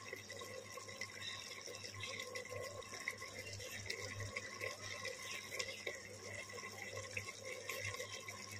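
Mutton in a yogurt and oil gravy cooking faintly in a steel pot, with a soft bubbling, crackly simmer and small ticks over a steady low hum.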